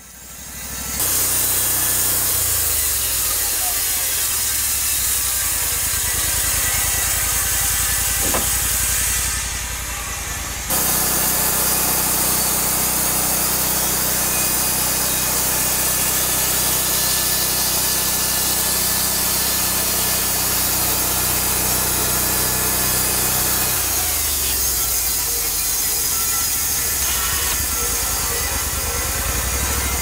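Portable band sawmill running under power, its engine droning steadily as the band blade saws an Eastern White Cedar log. The sound comes up about half a second in, dips briefly near ten seconds, then changes abruptly near eleven and again near twenty-four seconds.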